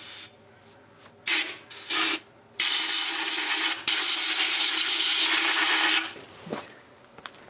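Compressed air hissing from an air-hose blowgun into an open differential, blowing out and drying the brake cleaner before welding. Two short blasts come about a second and two seconds in, then a long steady blast of about three seconds with a brief break partway through.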